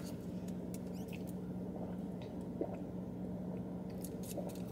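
Soft sipping through a plastic straw from a cup of soy milk, with a few faint small clicks, over a steady low hum.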